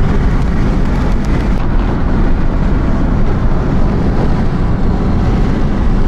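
Steady road noise inside a moving car's cabin: tyres on asphalt and the engine running, loudest in the low end, with no change through the stretch.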